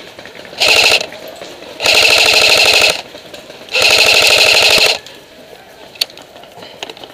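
AK-pattern airsoft electric gun firing full-auto in three bursts: a short one about half a second in, then two of about a second each. Each burst is a fast, even run of shots from the gearbox cycling.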